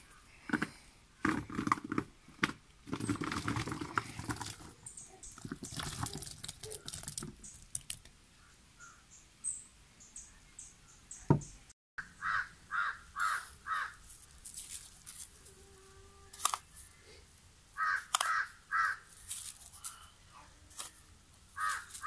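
Chopped fruit salad tipped from a bowl into a plastic basin, the pieces sliding and thudding down in a few seconds of clatter. After a cut, a crow caws in short series of four or five calls, twice, with light spoon clicks near the end.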